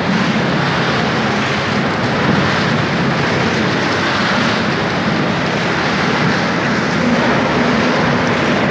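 Steady machinery noise of a potato chip processing line with a low hum, while a rotating stainless-steel drum tips fried potato chips into a steel bin, the chips pouring and rustling in a continuous rush.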